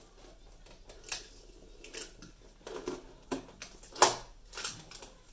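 Cardboard product box being handled and opened by hand: irregular scrapes, rustles and taps on cardboard, with the sharpest knock about four seconds in.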